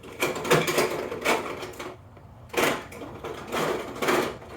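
Metal padlock parts and small tools clicking and rattling in a series of short clatters as the lock's pin stack is taken apart.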